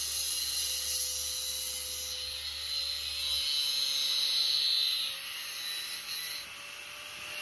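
Electric angle grinder running with a steady whine and a high hiss that swells and eases as the disc works on a steel rod.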